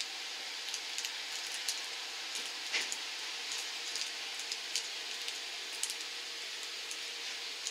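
Steady background hiss with faint, scattered small clicks and rustles from close handling.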